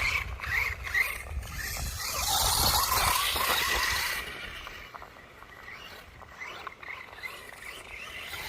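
Electric motor of an FTX Outlaw RC truck whining, rising and falling in pitch as the throttle is blipped in bursts over rough ground, then fading after about four seconds. Wind rumbles on the microphone.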